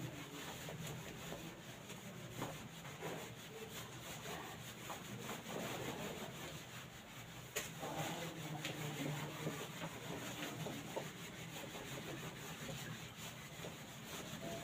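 A felt whiteboard duster rubbing back and forth across a whiteboard to wipe off marker writing, a steady scratchy rubbing with a couple of sharp knocks.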